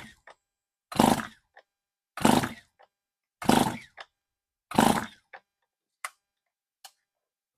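Stihl MS 291 chainsaw being cranked by hand on its recoil starter, throttle wide open, with a compression gauge on the cylinder: five hard pulls about a second and a quarter apart, each followed by a small click, then two faint clicks near the end. The engine does not fire. The freshly rebuilt engine is building over 100 psi of compression with its new rings not yet seated.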